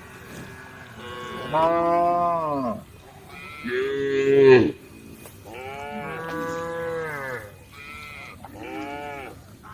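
Cows mooing: about five separate moos one after another, each rising and then falling in pitch, the loudest about halfway through.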